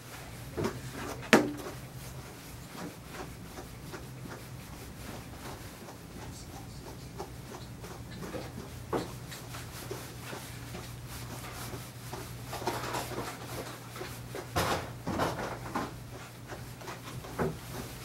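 Handling noises on a grooming table: light rubbing and scattered small knocks and clicks, with one sharp click about a second and a half in and a busier stretch of rubbing and knocks near the end, over a steady low hum.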